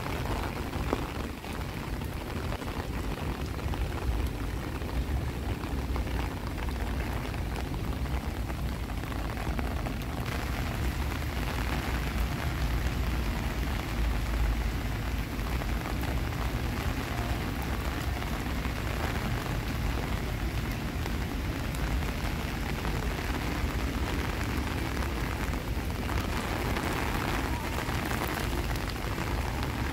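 Steady rain falling: a continuous, even hiss with a low rumble underneath.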